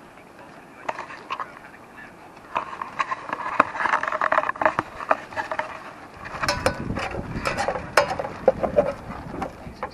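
Waterfowl calling: a quick run of short quacks and honks, starting about two and a half seconds in.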